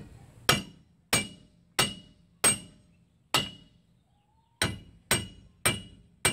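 Hand hammer striking the steel rear wheel hub of a dually van, nine sharp ringing blows. Five come at a steady pace, then after a short pause four more come a little faster.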